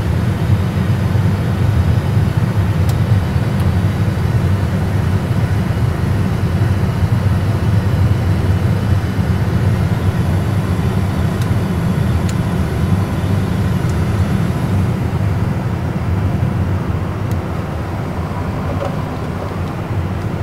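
Steady low rumble of an Airbus A320 flight simulator's cockpit background noise, with a few faint clicks of overhead-panel switches being turned off. The upper part of the noise eases slightly about three-quarters of the way through.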